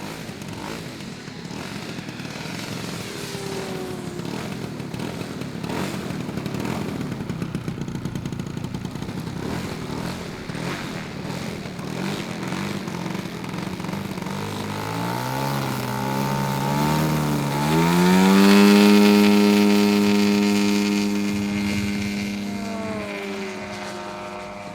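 Radio-controlled scale warbird model's piston engine in flight: a distant running engine at first, then the engine note climbs in pitch over a few seconds, is loudest about three-quarters of the way through, and fades as the plane passes away.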